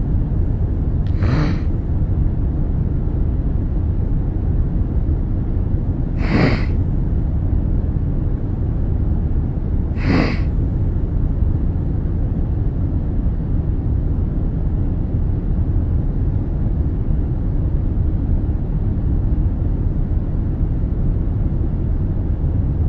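A sick man sniffling three times, about a second in, at about six seconds and at about ten seconds, over the steady low drone of an airliner cabin.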